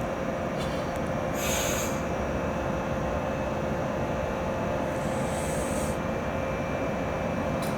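JR Kyushu Series 415 electric train: a steady hum with a held tone running through it, and two short hisses, one about one and a half seconds in and a fainter one around five seconds in.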